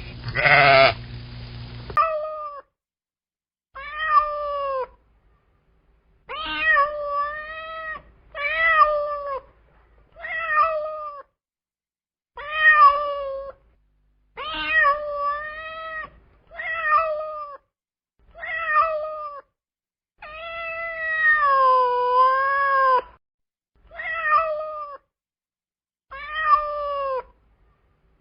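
Cat meowing repeatedly: about a dozen separate meows of a second or so each, with one longer, wavering meow about twenty seconds in.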